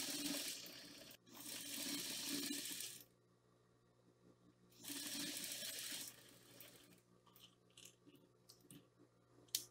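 Electric household sewing machine stitching a seam in three short runs, each a second or two long, with sharp starts and stops. Faint light clicks and fabric handling follow near the end.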